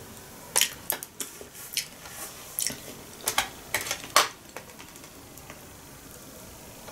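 Training chopsticks clicking together and tapping on a clear plastic food tray and a small dish as sushi rolls are picked up. The light, irregular clicks come over the first four seconds or so, then die away.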